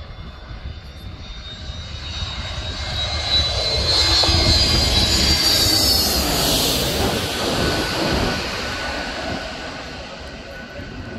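Twin-engine jet airliner on final approach passing low overhead. The engine noise builds to a peak between about four and seven seconds, with a high whine that drops in pitch as the aircraft goes over, then fades to a rumble as it heads away toward the runway.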